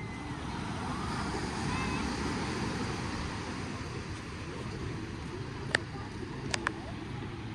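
Outdoor ambience: a steady low rumble of traffic and wind, with faint distant voices. Three sharp clicks come about three quarters of the way through: one alone, then two close together.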